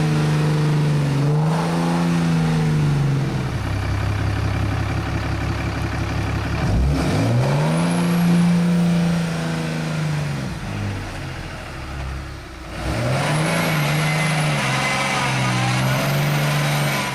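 A vehicle's engine revving up and down again and again as its drive wheels spin in deep snow without traction. The revs swell and fall three times, with a steadier lower drone in between.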